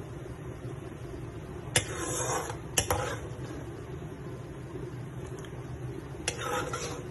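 Metal ladle knocking and scraping against a wok while scooping adobo sauce: one sharp clink about two seconds in, a quick double clink a second later, and another near the end, each followed by a brief scrape. A steady low hum runs underneath.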